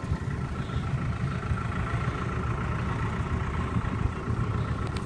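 Tractor diesel engine idling steadily: a low, even rumble with a faint steady whine above it.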